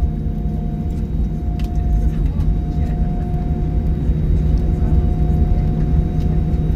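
Cabin noise of an Airbus A321 rolling on the runway after touchdown, heard from a seat over the wing: a steady deep rumble from the wheels and airframe with a steady engine hum on top.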